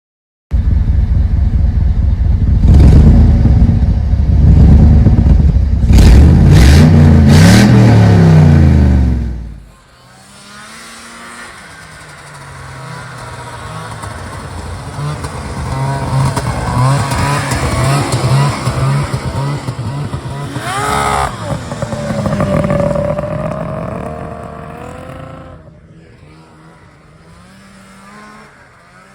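A motor vehicle's engine revving hard, very loud, its pitch climbing before it drops away abruptly about ten seconds in. After that a quieter engine sound rises and falls in pitch, then fades near the end.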